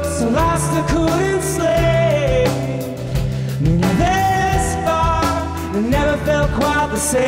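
Rock band playing live: a male lead voice singing a melody over electric guitar, electric bass and a drum kit keeping a steady beat.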